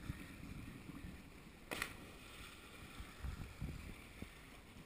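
Faint wind rumbling on the microphone over lapping seawater, with one short sharp splash about two seconds in as a cliff jumper hits the sea.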